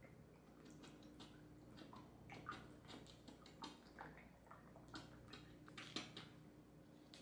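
Faint, irregular wet clicking of a fork beating raw eggs in a well of flour, the tines tapping and stirring through the egg.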